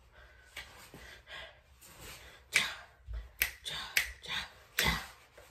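A handful of sharp finger snaps, irregularly spaced, growing louder and closer together in the second half.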